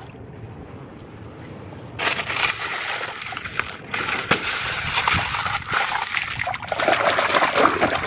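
Shallow muddy water sloshing and splashing as a hand moves plastic toy trucks through it, with scattered sharp clicks. It is quieter at first and grows louder about two seconds in.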